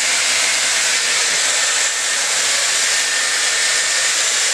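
A Dyson Airwrap hair styler runs steadily as it is drawn through damp hair with its brush drying attachment. It makes an even rush of blown air with a thin, high-pitched whine on top.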